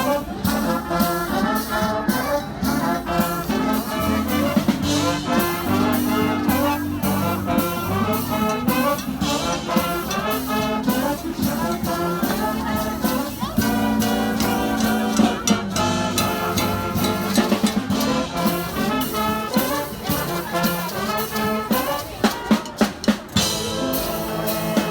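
Brass band playing an upbeat tune: trumpets and trombones over a steady drum beat.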